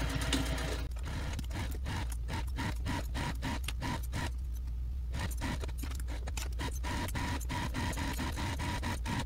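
Juki TL-2200 QVP Mini straight-stitch sewing machine stitching along the edge of a vinyl and quilting-cotton bag handle, a run of quick needle strokes over a steady motor hum, pausing briefly a little past four seconds in.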